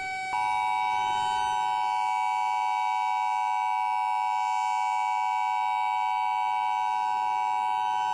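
Emergency Alert System attention signal: the steady two-tone alert tone, starting a moment in and holding unbroken, which announces an emergency alert message to follow.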